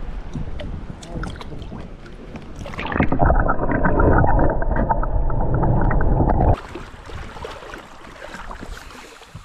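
Kayak on moving water: water noise with small knocks and clicks against the hull. About three seconds in, a louder muffled rushing starts suddenly and cuts off sharply about three and a half seconds later.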